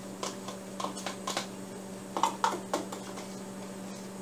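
Irregular light taps and clicks of a spoon against a small plastic prep bowl as hoisin sauce is scraped out into a mixing bowl, over a steady low hum.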